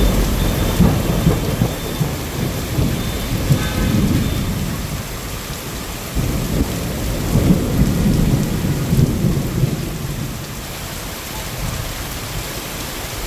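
Heavy rain falling steadily, with two long low rumbles swelling and fading: one through the first few seconds, the other from about six to ten seconds in.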